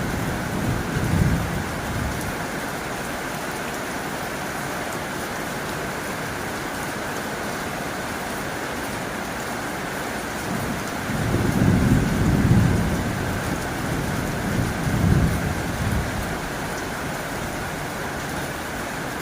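Heavy rain drumming steadily on a tin roof, with low rumbles of thunder swelling up about a second in and again in a longer roll through the middle of the stretch.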